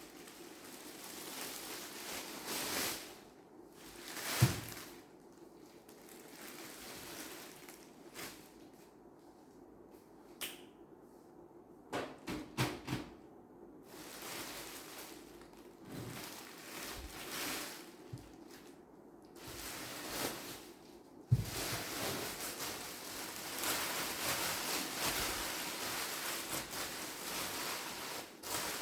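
Unboxing handling noises: packaging rustling and the case being moved, with a few sharp knocks and clicks. A steadier rustling starts after a knock about two-thirds of the way in.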